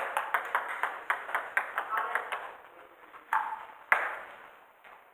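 Table tennis ball clicking off paddles and the table in a rally, about three to four hits a second at first, then thinning out, with one sharp louder hit near the end.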